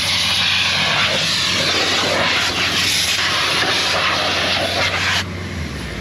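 Compressed-air hose blowing dust and chaff off a combine header: a loud, steady rushing hiss that drops sharply about five seconds in. An engine runs steadily underneath.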